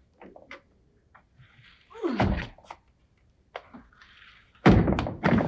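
A string of knocks and thumps, with a short hiss about two seconds in and the loudest thumps near the end.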